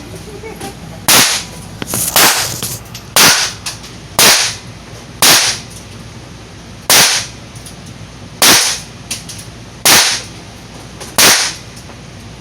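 Handgun shots on a firing range, fired singly at a steady pace about a second or so apart, nine or so in all, each a sharp loud crack with a short ring-out.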